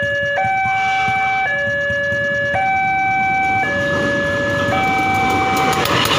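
Railway level-crossing warning alarm sounding a steady alternating two-tone signal, each tone lasting about a second. From about two-thirds of the way in, the rumbling noise of the approaching train rises beneath it.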